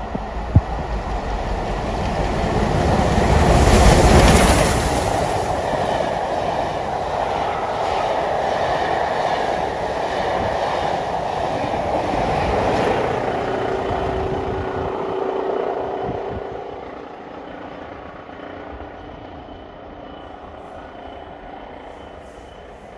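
Rebuilt Merchant Navy class steam locomotive 35028 Clan Line running through at speed with its train. The rumble and clatter build to a peak about four seconds in as the engine passes, then the coaches rattle by. A steady whine comes as the last coaches go, and the sound fades away from about sixteen seconds.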